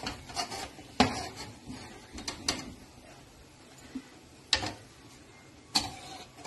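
A few sharp clinks and knocks of a slotted spoon against the rim of a kadhai as fried mathri are lifted out of the hot oil and set down on paper towel; the loudest comes about a second in.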